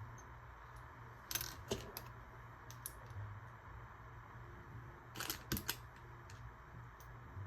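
Small hard objects clicking and rattling as they are handled, in two short clusters, about a second and a half in and again about five seconds in, over a faint steady hum.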